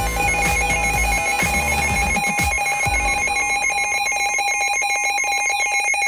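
Weather radio's electronic alert alarm: a rapid warbling two-tone beep, sounding steadily as a severe thunderstorm watch message comes in.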